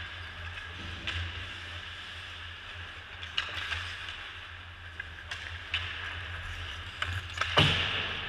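Ice hockey play heard on the ice: skates scraping against a steady low hum, with sharp clacks of sticks and puck every second or two, the loudest near the end.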